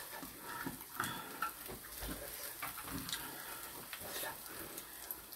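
Faint sizzling of pork belly slices on a tabletop gas grill, with scattered light clicks and taps of chopsticks on the grill plate and dishes.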